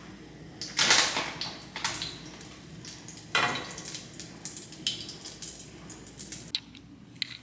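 Kitchen clatter: dishes, pans and utensils being handled and set down, a handful of separate knocks and clinks, the loudest about a second in.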